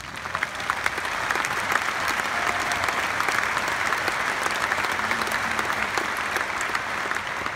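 A large arena crowd applauding. The clapping swells over the first second, holds steady, then eases slightly near the end.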